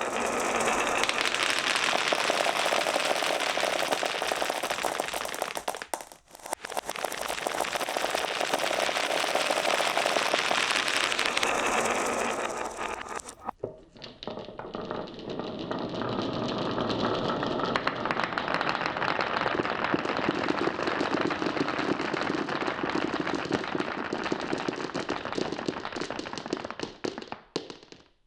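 Many marbles rolling and clattering down wooden marble-run tracks: a dense, rapid rattle of clicks, briefly thinning about six seconds in and breaking off about thirteen seconds in before a second stretch of clatter.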